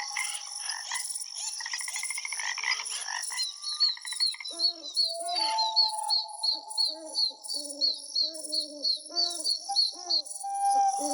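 Birds singing varied chirps and a quick trill. From about four seconds in, frogs croak in a steady run of about two to three croaks a second, under a fast series of high chirps and a constant high pulsing buzz.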